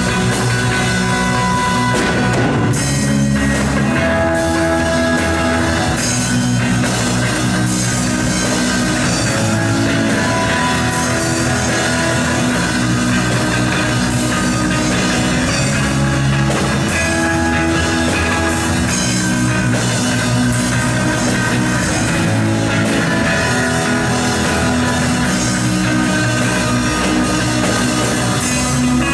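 Live instrumental rock from a band: a solid-body electric guitar played over a drum kit, loud and continuous.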